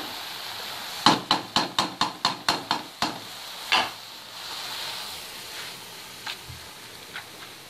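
Wooden spoon knocking against a metal cooking pan as boiled greens are stirred and scooped out: about ten sharp knocks, roughly four a second, ending with a last knock near four seconds in. After that come only faint ticks over a soft hiss.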